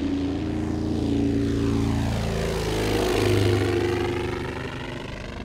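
Twin propeller engines of a Windracers ULTRA cargo drone flying low past overhead. The engine note shifts down in pitch as it passes, loudest about three seconds in, then fading.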